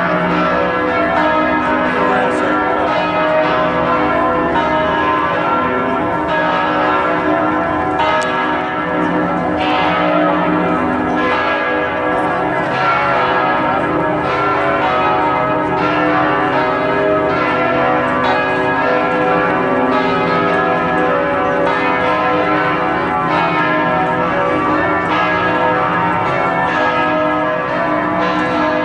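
Church bells of Notre-Dame Basilica ringing in a full peal, many bells struck in quick succession so their tones overlap into one continuous ringing.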